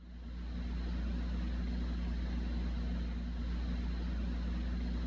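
A steady, low engine drone at an even speed, fading in at the start.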